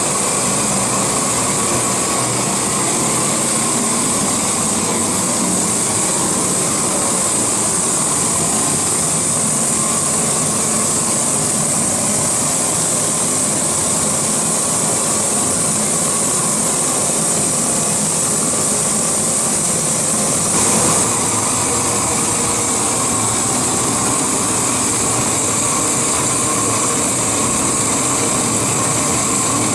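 A 1 million BTU heating torch, fed by propane and compressed shop air, burning full on with a loud, steady rush heavy in hiss. It is playing on a cast iron clutch bell housing to preheat it for brazing.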